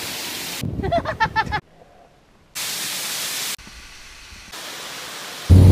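A quick run of separate one-second clips: an even rush of wind-driven rain, a brief burst of a voice, about a second of near silence, then a loud steady rush and quieter stretches of rushing noise such as falling water, ending in a sudden loud low hum.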